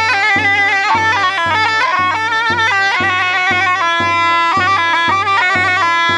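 A zurna playing a loud, ornamented folk melody, its notes wavering and trilled, held steadier in the last couple of seconds. A regular low beat of about two pulses a second runs under it.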